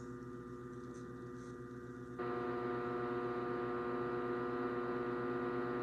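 Microwave oven running: a steady electrical hum that steps up louder about two seconds in.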